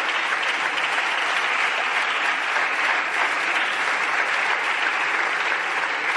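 Many people clapping at once: steady applause from a full bench of parliamentarians.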